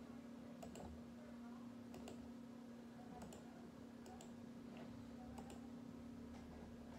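Faint computer mouse clicks, each a quick press-and-release pair, about five of them spaced a second or so apart, over a steady low hum.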